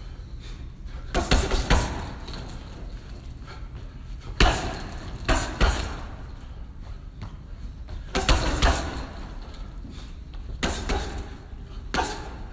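Boxing gloves hitting a hanging heavy bag in short combinations: quick runs of sharp thudding punches, with a few seconds between runs.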